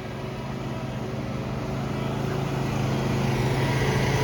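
Lawn mower engine running steadily, growing louder as it comes closer.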